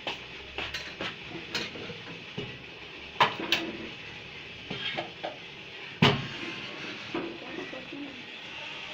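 Occasional clinks and knocks of kitchen dishes and utensils being handled, the sharpest a little over three seconds in and again about six seconds in.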